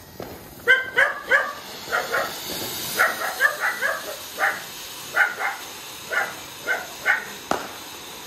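A dog barking over and over in short barks, about two a second, over the steady hiss of a small fountain firework spraying sparks.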